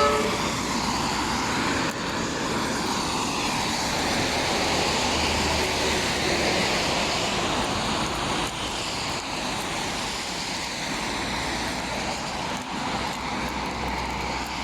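Steady road and engine noise of a GAZelle Next van driving along.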